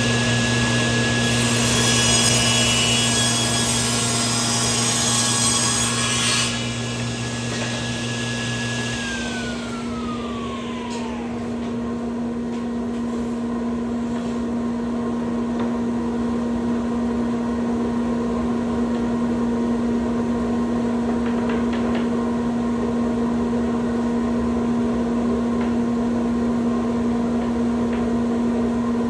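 Power saw cutting through redwood for about six seconds. The saw is then switched off and its motor winds down in a falling whine. A steady machine hum carries on after it.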